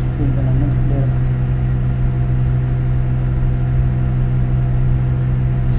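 Steady low hum with a stack of overtones, unchanging throughout; a faint trace of voice sits on it in the first second.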